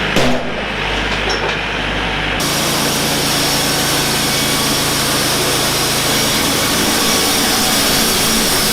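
Portable sawmill running, its engine going steadily; about two seconds in the sound changes abruptly to a fuller, hissing noise that holds steady.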